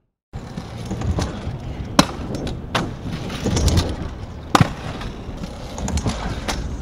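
Stunt scooter being ridden: wheels rolling on hard ground with several sharp impacts. The loudest impacts come about two seconds in and again about four and a half seconds in.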